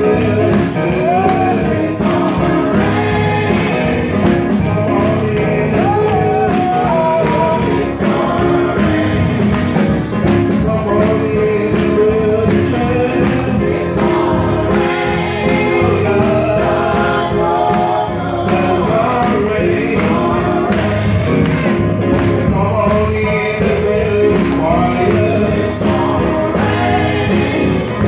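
Live gospel music: a drum kit and organ play with singing over them, a steady beat of drum hits under sustained organ chords.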